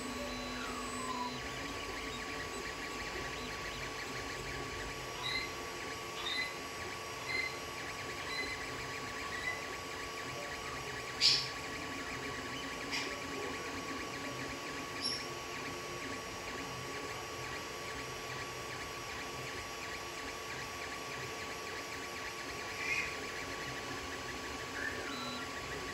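Creality Ender 3 3D printer running a print: the steady hum of its cooling fans and stepper motors, with scattered short high chirps and a sharp click about eleven seconds in.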